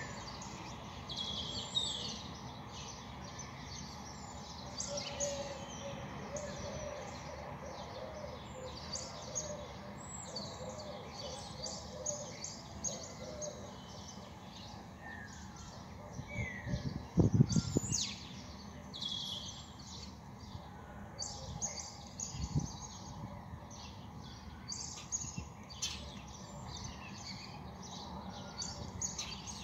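Many small birds chirping in a dense dawn chorus: constant short chirps with a few falling whistles, over a steady low background murmur. A little past halfway comes a brief low-pitched sound lasting about a second, the loudest moment, and a fainter one a few seconds later.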